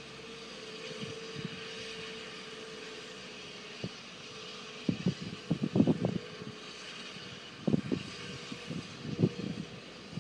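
Santa Fe #3751 steam locomotive standing with a steady hiss of steam and a faint steady hum. Irregular low thumps come in clusters from about five seconds in.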